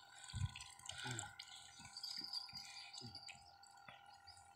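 Faint water splashing and dripping from a landing net worked in the water around a hooked stingray, with a few soft low knocks.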